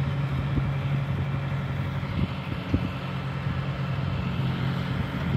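Engine of a mobile boat hoist (travel lift) running steadily with a sailboat in its slings: a constant low hum with a few brief knocks.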